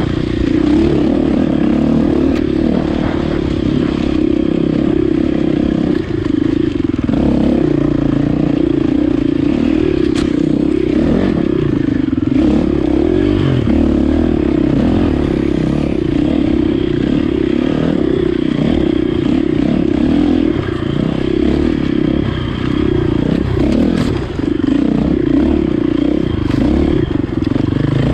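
Enduro dirt bike engine ridden hard, its pitch rising and falling steadily with the throttle.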